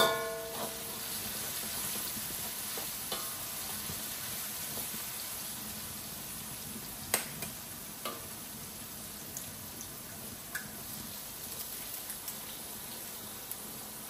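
Fried rice and vegetables sizzling in a pan as they are stirred, with a loud ringing metal clang at the start and a few sharp clicks and scrapes of the spatula against the pan.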